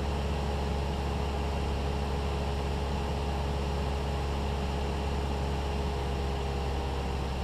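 Steady drone of a Cessna 172's piston engine and propeller in flight, heard inside the cabin with a layer of hiss.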